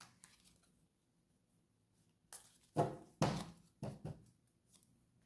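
Tarot cards being picked up and handled on a cloth-covered table: a few short rustles and light knocks of card against card and table, clustered about two to four seconds in.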